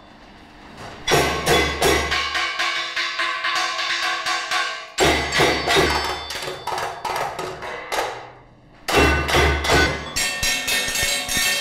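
Ensemble percussion played on old hammers and other tools: rapid rhythmic strikes over heavy low thumps, with ringing tones sustaining between hits. It starts about a second in, comes back in hard about five seconds in, dies away briefly, and starts again near nine seconds.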